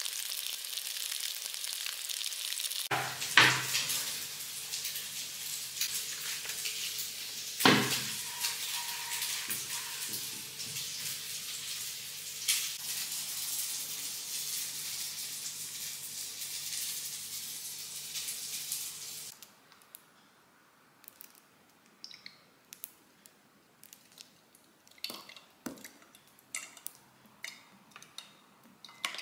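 Kitchen cooking sounds: a steady hiss with a few sharp clatters of dishes or utensils. The hiss cuts off abruptly about two-thirds through, leaving scattered small clinks and drips.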